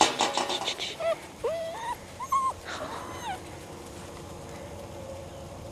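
Seven-week-old Labrador retriever puppies whining and yipping: a quick run of short, high, rising-and-falling cries in the first few seconds, after a burst of rustling at the start.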